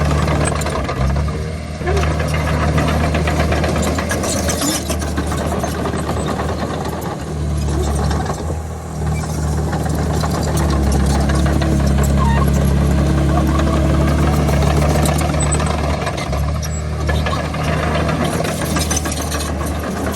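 Diesel engine of heavy earthmoving machinery running under load. Its note shifts a few times, with brief dips in level and a pitch change about halfway through.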